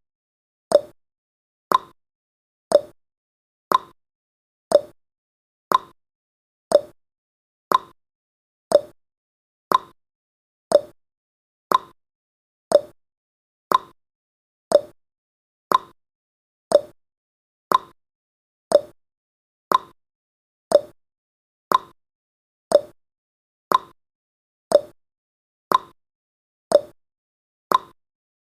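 Countdown timer's clock-tick sound effect: a short, sharp tick once every second, alternating slightly louder and softer like a tick-tock.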